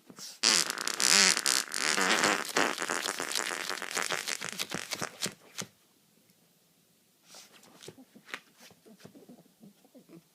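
A loud, fast sputtering rush of escaping air, like a fart or a deflating balloon, starting about half a second in and trailing off after about five seconds.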